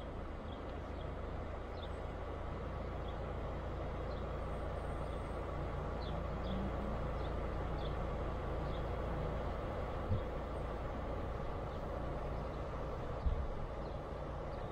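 Car rolling slowly along a gravel dirt track, heard from a camera on its bonnet: a steady low rumble of engine and tyres on stones, with a couple of knocks in the second half and faint short high chirps now and then.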